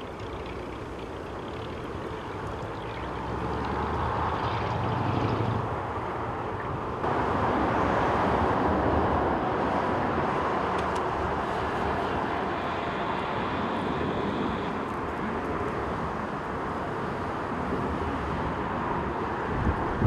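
Jet airliner engine noise mixed with gusty wind on the microphone: first a Boeing 777 rolling out after landing, then, after an abrupt change partway through, a louder steady rush as a Boeing 787 lands and rolls out, with a faint high engine whine for a while.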